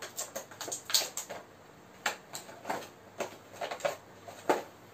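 Clear plastic figure packaging crinkling and snapping in irregular sharp clicks as a small accessory is worked out of it by hand.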